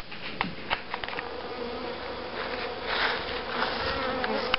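Honeybees buzzing in a steady, massed hum of wings, with a few short clicks in the first second.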